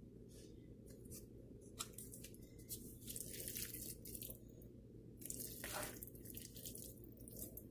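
Faint, scattered scraping of a spatula against a frying pan, with soft wet plops as thick chicken pot pie filling slides into a dough-lined pie dish.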